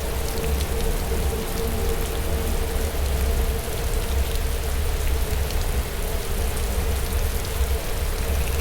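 Steady rain falling, with small drop ticks over a low rumble and a steady hum.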